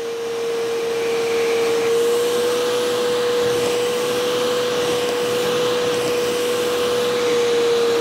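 Bissell SpotClean ProHeat portable carpet spot cleaner running, its suction motor a steady whine over a hiss of air drawn through the hand tool as it lifts a stain from the carpet.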